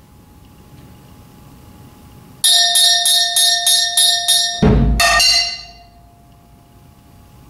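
Ringing metal percussion struck with mallets, starting about two and a half seconds in: a quick even run of about eight strokes, roughly three a second, then a low thump and one last metal stroke left to ring and die away.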